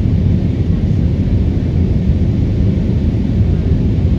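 Airbus A320neo's engines and airflow heard from inside the cabin: a loud, steady low rumble with a hiss above it.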